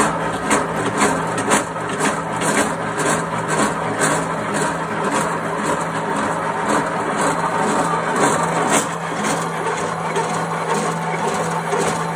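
A heavy-duty pillar drilling machine running, its large twist drill boring into a steel block under hand feed: a steady motor hum with repeated sharp crackles of metal chips breaking off, about two a second, thinning out near the end.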